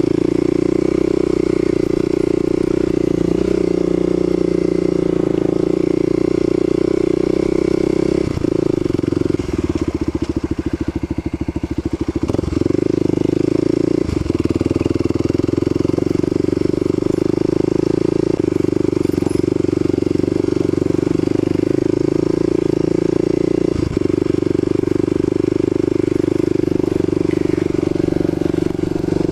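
Kawasaki KLX250's single-cylinder four-stroke engine running steadily while riding. About a third of the way in the throttle is eased and for a couple of seconds the engine note turns into a slow, even pulsing before picking up again, with a few sharp knocks as the bike goes over a railway crossing.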